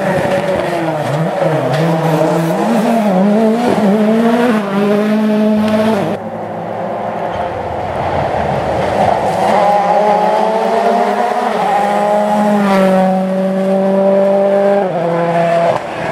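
Rally car engine revving hard, its pitch climbing and then dropping sharply at each gear change.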